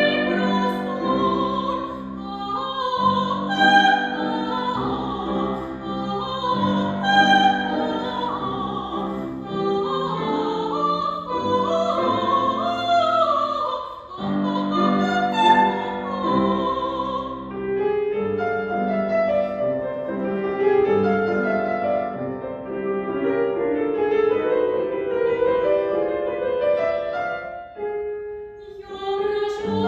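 A female classical singer singing in operatic style with vibrato, accompanied by piano.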